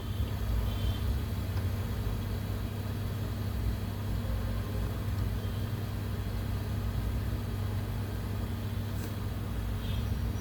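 Steady low electrical hum from the bench equipment, a constant drone that does not change, with a few faint ticks.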